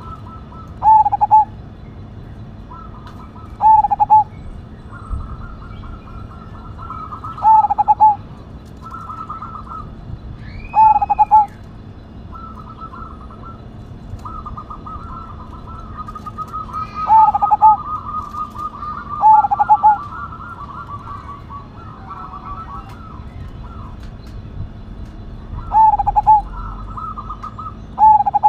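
Zebra dove (perkutut) cooing: loud doubled coo notes repeated every two to four seconds, with softer, rapid trilled coos in between.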